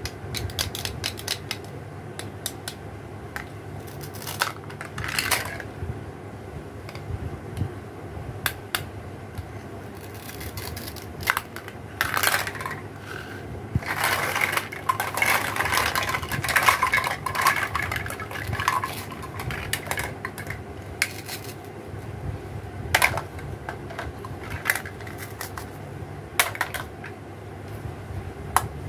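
Plastic toy fruits with hook-and-loop joins being cut and pulled apart with a plastic toy knife and handled: light plastic clicks, taps and short rips. Near the middle comes a longer stretch of busy clattering as the pieces are gathered together, all over a steady low hum.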